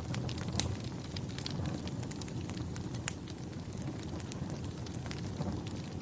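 Wood fire crackling, with a steady low rumble and scattered sharp pops and snaps, a louder pop about half a second in and another about three seconds in.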